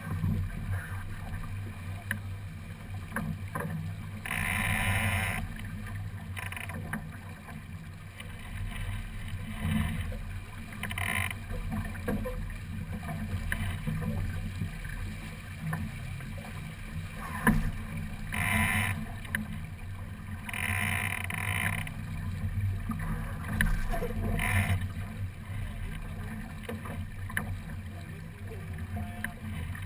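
Water rushing along a small sailing keelboat's hull under way, over a steady low rumble. Every few seconds a louder swish of water or wind lasting about a second stands out.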